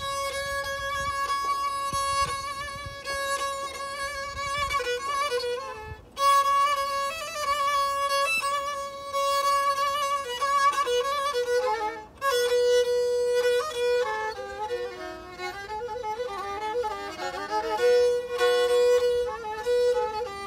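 Black Sea kemençe, a small three-stringed bowed fiddle held upright, playing a solo instrumental melody: long held notes that break briefly about six and twelve seconds in, then quicker moving phrases.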